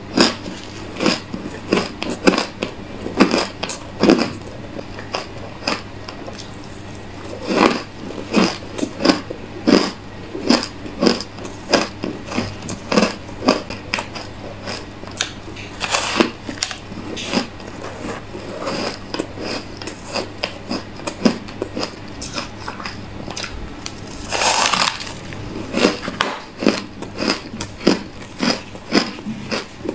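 Close-up crunching of frost-coated ice chunks being bitten and chewed: a fast, uneven run of crisp crunches, about two a second, with one longer grinding crunch about two-thirds of the way through.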